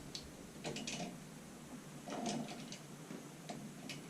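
Faint clicks and scrapes of a metal washer and nut being worked down onto a closet bolt at a toilet flange, in a few short clusters.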